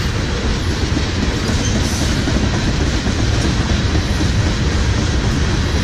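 Steel wheels of a freight train of ethanol tank cars rolling past on the rails: a steady, loud rumble.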